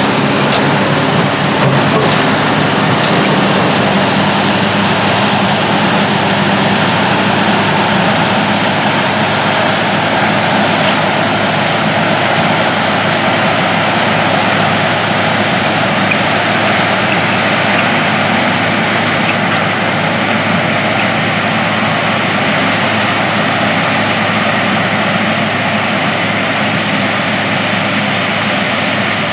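Steady, loud running of a John Deere self-propelled forage harvester chopping standing corn for silage and blowing it into a wagon. A John Deere 8245R tractor's Final Tier 4 diesel engine runs alongside it, pulling the silage wagon.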